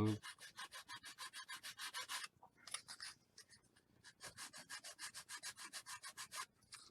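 Small piece of sandpaper rubbed quickly back and forth over a thin basswood part, about eight strokes a second, in three runs with short pauses between them. It is smoothing off the nubs left where the laser-cut piece was snipped from its sheet.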